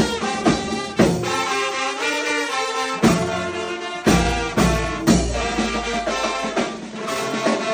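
Music with brass instruments and drums.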